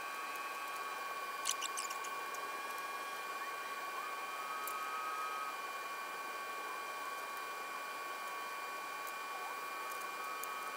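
A few light clicks of small metal parts being handled at the front of a bicycle frame, the clearest about one and a half seconds in, over a steady hiss with faint thin high whines.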